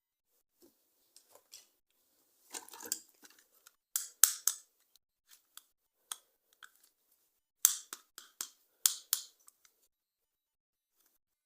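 Toys and their packaging being handled up close: irregular sharp plastic clicks and brief crinkling, loudest in two clusters around four seconds and eight to nine seconds in.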